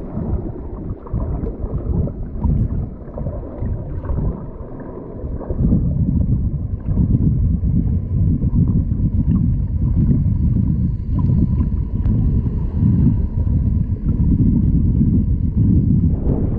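Wind buffeting the microphone in a loud, gusting low rumble that grows heavier about five seconds in.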